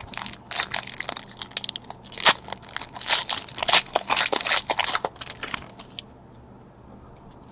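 Foil wrapper of a baseball card pack being torn open and crinkled by hand: a dense run of crackling that stops about six seconds in.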